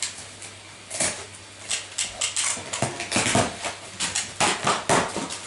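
Gift wrapping paper tearing and crinkling as a present is unwrapped, with irregular crackles and taps from the cardboard gift box being opened.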